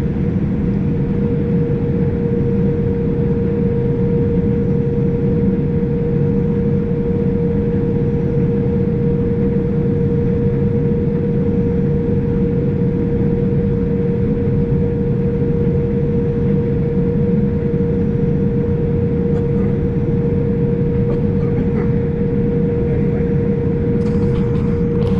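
Case IH 7088 combine running steadily under harvest load: a constant low drone with a steady whine on top.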